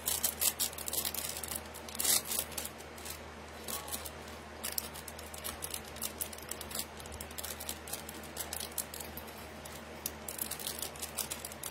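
Costume jewelry and its display cards being handled: small clicks, rattles and rustles, thickest at the start, about two seconds in and again near the end.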